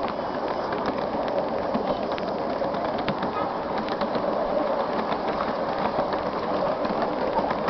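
7¼-inch-gauge miniature steam railway train running along the track, heard from aboard a passenger car: a steady rumble of wheels on rail with scattered clicks as the wheels pass over rail joints and points.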